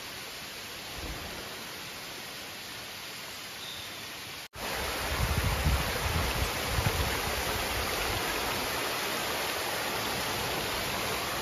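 Steady outdoor rushing hiss with no clear single source. About four and a half seconds in there is a sudden cut, after which the hiss is louder, with a few low rumbles for a couple of seconds.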